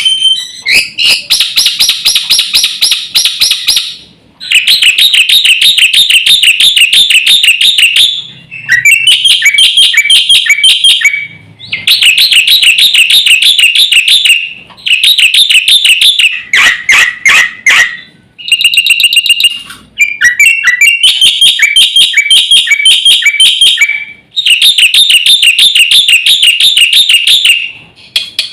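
Black-winged starling (jalak putih) singing in loud bouts of fast, repeated chattering notes. Each bout lasts a few seconds, with brief pauses between them.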